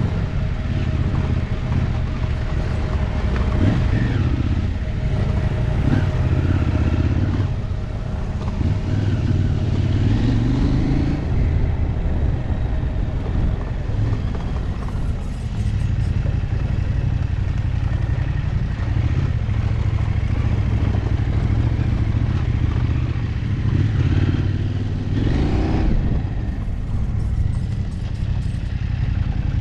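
Off-road motorcycle engine running while riding a dirt track, heard from the rider's own bike, with the revs rising several times as it accelerates.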